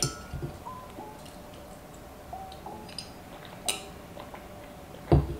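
Quiet eating sounds from a sandwich and a milky coffee sipped from a glass mug: faint chewing and small wet mouth clicks. A short crisp sound comes a little before the end, then a louder low thump near the end.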